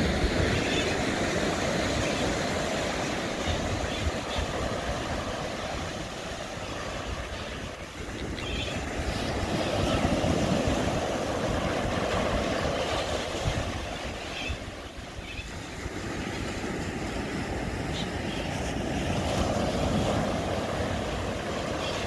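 Small waves breaking and washing up a sandy beach, swelling and easing every several seconds, with wind rumbling on the microphone.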